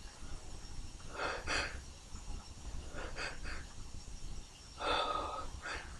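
Sneezes and the sharp breaths around them: several short, breathy bursts about a second and a half apart, the loudest about five seconds in.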